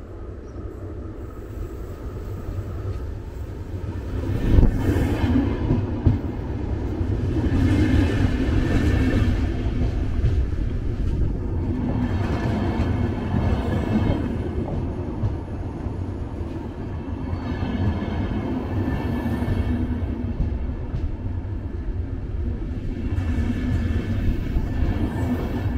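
A VR double-deck InterCity train rolling past along the platform: a steady low rumble of wheels on rail that grows as the train reaches the spot about four seconds in, with two sharp knocks there. A louder swell with a higher ringing hiss comes every four to six seconds as each carriage's bogies pass.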